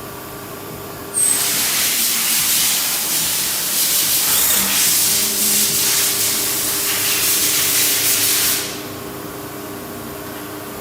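Deckel Maho DMU 80T 5-axis machining centre running with a low hum. A loud, steady hiss cuts in suddenly about a second in and stops after about seven and a half seconds.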